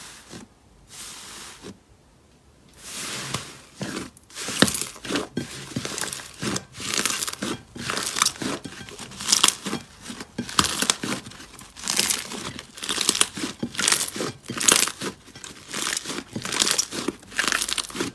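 Thick dark grey slime kneaded and pressed by hand, giving a long, irregular run of loud crackling, crunchy pops. A softer hiss comes first, then a short lull.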